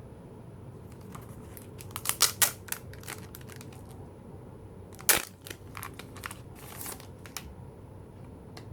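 Packaging of a photocard set being handled, crinkling and giving sharp clicks: a quick cluster of clicks about two seconds in and one loud snap about five seconds in.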